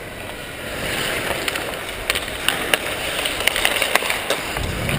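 Ice-hockey skates scraping and gliding on rink ice, with a run of short sharp clacks of sticks on puck and ice from about a second and a half in.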